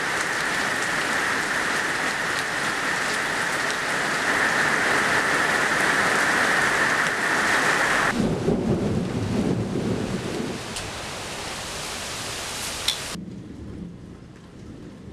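Steady heavy rain falling and splashing on wet ground. About eight seconds in the sound changes suddenly to a low rumble of thunder under the rain, and near the end it drops abruptly to quieter, duller rain.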